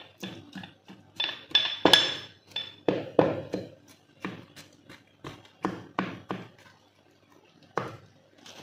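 Large kitchen knife cutting deep slits into raw chicken leg pieces and striking the cutting board: a run of sharp knocks about three a second, some with a brief metallic ring, thinning out after about six seconds.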